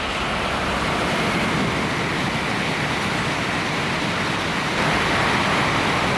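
Tokaido Shinkansen train passing through at high speed: a loud, steady rushing noise that builds and is loudest near the end.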